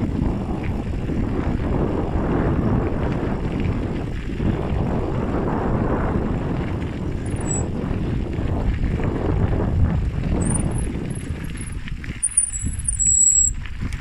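Rough, steady rumbling of a bicycle ride along a bumpy dirt track. Near the end the rumble eases and a few short, high squeaks sound.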